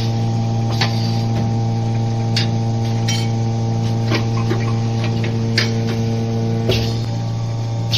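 Automatic can vacuuming and seaming machine running with a steady hum, with sharp mechanical clicks at irregular intervals, about six in all.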